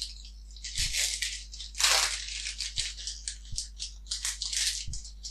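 Foil wrapper of a Pokémon TCG booster pack crinkling and tearing as it is opened by hand: a run of sharp crackles, loudest about two seconds in, with a few soft knocks.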